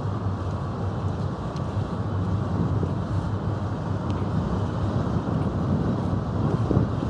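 Steady low rumble of wind buffeting the microphone, with no distinct event standing out.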